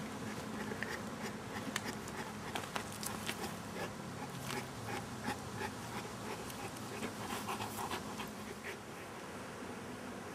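English mastiff panting, with short irregular breathy strokes over a steady low hum.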